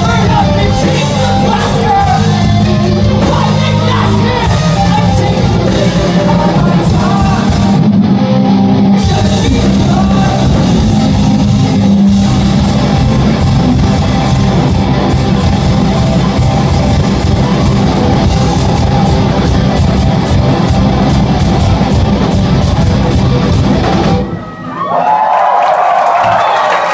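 Rock band playing loud and live in a club hall, with drum kit, guitars and singing. About 24 seconds in the song stops abruptly, and the crowd starts applauding and cheering near the end.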